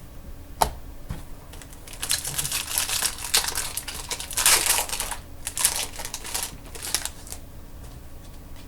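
Trading cards being handled: a sharp click, then several seconds of dense, dry papery rustling and clicking as cards are slid and flicked against one another.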